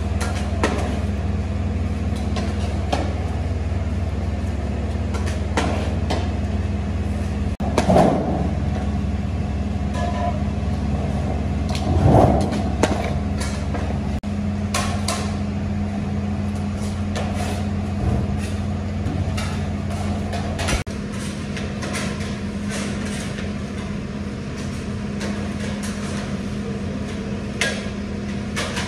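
Metal ladles scraping and knocking against large metal cooking pans as rice is scooped and served, with scattered sharp clanks, over a steady low hum.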